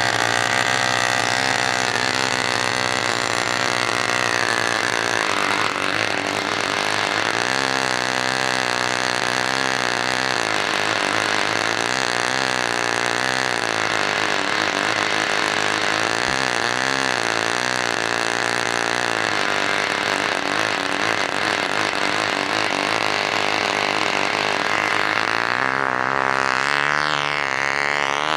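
McCoy .29 Red Head two-stroke glow engine on a control-line Ringmaster model airplane, running flat out in flight. Its pitch rises and falls in a regular wave as the plane circles, with a bigger swing in pitch near the end.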